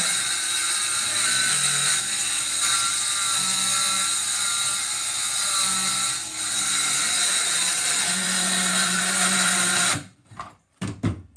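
A power saw runs steadily while cutting through plywood subfloor, then stops abruptly about ten seconds in. A few short knocks follow.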